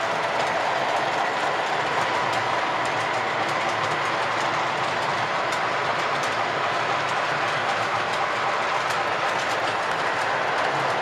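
O gauge model train running on its track: a steady rolling whir of motor and wheels with light, irregular clicks.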